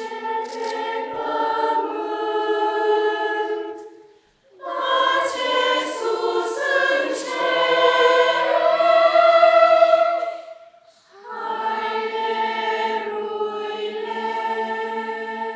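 Children's choir singing a Romanian Christmas carol (colind) unaccompanied, in three phrases with short breaks about four and eleven seconds in.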